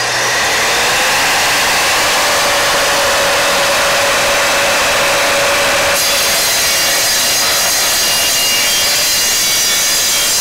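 Evolution R255SMS 10-inch sliding miter saw running at full speed with its multi-material carbide-tipped blade, a steady loud whine. About six seconds in, the blade starts cutting into a 3/4-inch steel pipe, fed slowly, and a high metallic hiss is added to the motor sound.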